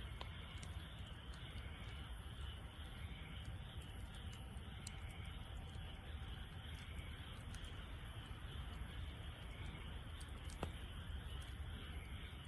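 Wood fire burning in a Snow Peak fire pit: a steady low rush with an occasional sharp crackle or pop from the burning wood.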